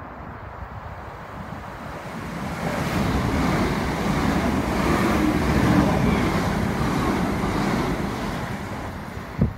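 Southern electric multiple unit passing through a station at speed: a rushing rumble of wheels on rail that builds over a couple of seconds, holds for several seconds as the coaches go by, then fades, with wind buffeting the microphone. A short thump near the end.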